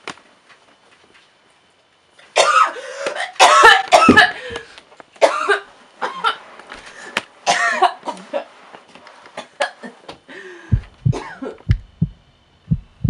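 A young woman coughing, gagging and choking loudly in strained fits, as if poisoned. Near the end a run of low, dull thumps follows.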